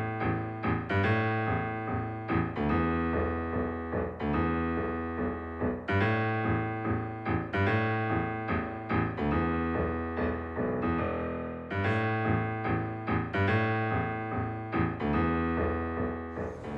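Intro music: piano or electric-piano playing a repeating, rhythmic pattern of chords and notes.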